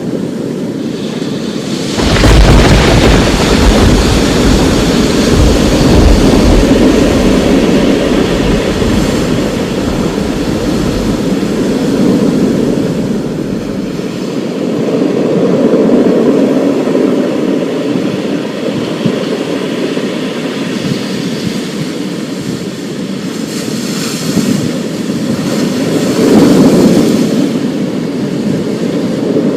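Steady heavy rain with a long roll of thunder. The thunder breaks in suddenly about two seconds in and rumbles deep, slowly fading over roughly ten seconds; the rain swells and eases after it.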